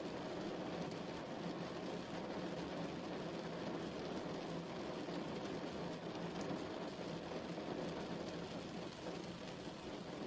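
Steady rain falling, an even patter of drops hitting a surface.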